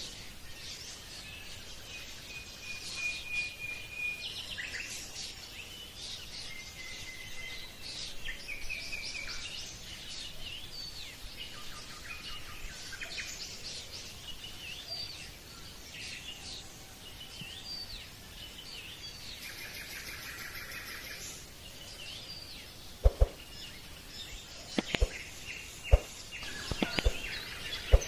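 Many birds chirping and whistling over a steady outdoor background, with a dense buzzing trill about twenty seconds in. Near the end, several loud sharp clicks cut in.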